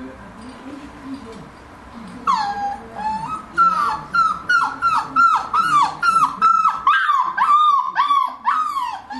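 Four-week-old flat-coated retriever puppy whining and yelping. It starts about two seconds in, with a quick run of high cries, each one rising and then dropping, about two a second.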